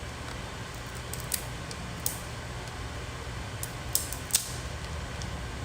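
Crab leg shells being cracked and picked apart by hand: about five sharp, thin snaps scattered through the middle, over a steady low hum.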